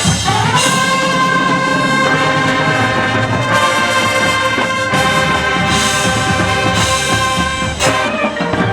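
Marching band brass section holding a long, loud sustained chord, closing with short sharp accented hits near the end.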